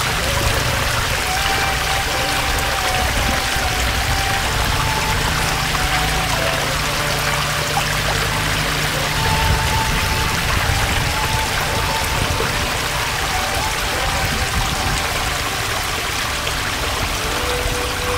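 Water flowing steadily, a continuous rushing and trickling, with a few faint held tones in the background.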